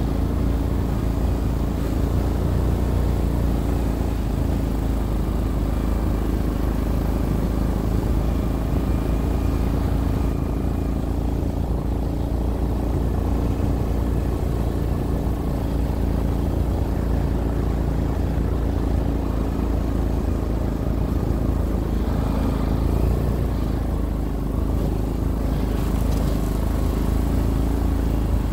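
ATV engine running steadily as it breaks trail through fresh snow, an even drone with no change in speed.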